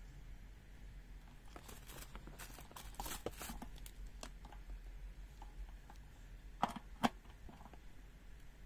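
Faint rustling and small clicks from multimeter test leads and probes being handled, with two sharper clicks about two-thirds of the way in, as the probes are readied for a mains AC voltage test.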